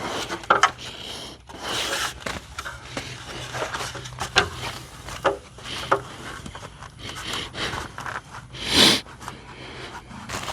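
Irregular scraping, rubbing and short knocks of hands-on work on a barn wall, with one louder, longer scrape about nine seconds in.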